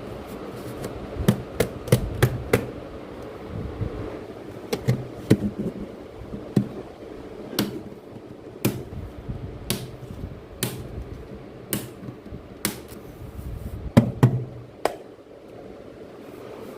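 A series of sharp taps and knocks, a few irregular ones at first, then about one a second through the middle, with the loudest pair near the end, over a low rumble.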